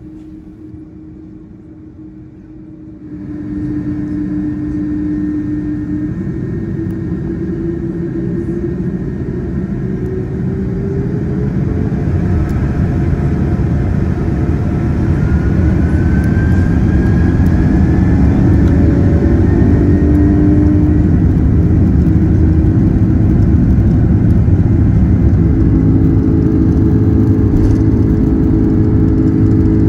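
Airbus A310's turbofan engines spooling up for takeoff, heard from inside the cabin beside the wing. The engine noise jumps up about three seconds in, then grows louder through the takeoff roll with a rising whine and levels off at full power.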